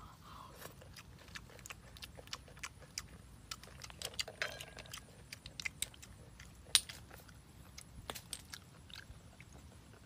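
A boy eating boiled mud clams: close chewing and mouth smacks with many sharp, irregular clicks, the loudest about two-thirds of the way in.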